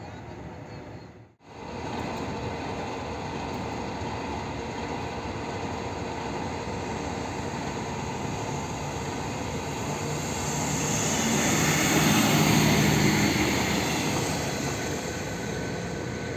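Koleje Dolnośląskie SA135 diesel railcar approaching and running past, its engine and wheels growing loudest about three-quarters of the way through and then fading, over the steady drone of a diesel locomotive idling. The sound drops out briefly about a second in.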